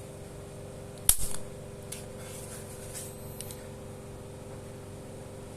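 Needle-free injector pen firing with one sharp snap about a second in, followed by a few fainter clicks.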